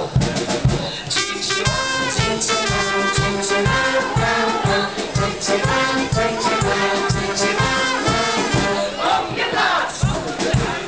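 Live brass band playing a lively tune over a steady drum beat, the brass melody coming in about a second in, with a crowd of children shouting and singing along.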